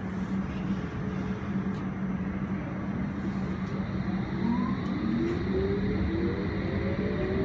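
District line S7 Stock train heard from inside the carriage: a steady hum and rumble, then about four seconds in the traction motors' whine rises in several pitches together as the train picks up speed.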